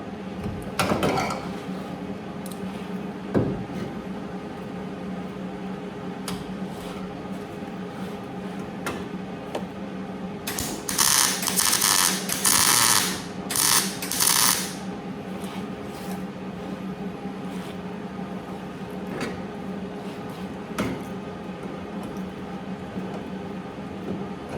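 Several short bursts of a high-speed power tool working on the sheet-metal patch, with a few clicks and knocks around them over a steady hum.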